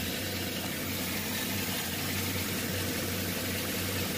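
Chevy 5.3 L LS V8 idling steadily, with the ticking noise from the driver's side that the owner puts down to failing lifters (possibly the DOD/AFM lifters).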